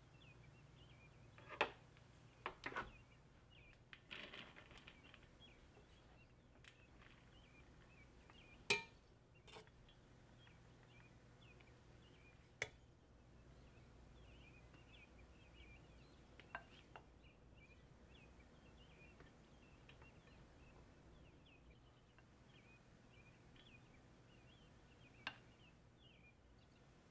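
Scattered clinks and knocks of a serving utensil against a stainless-steel pot and platter as cooked rice is scooped and served, with a short scrape about four seconds in. Otherwise near silence.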